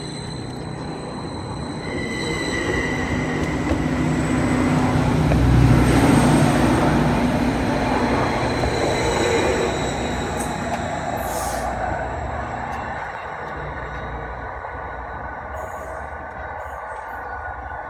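Train passing close by: the rumble of its wheels on the rails with thin, steady wheel squeal. It builds to its loudest about six seconds in, then slowly fades.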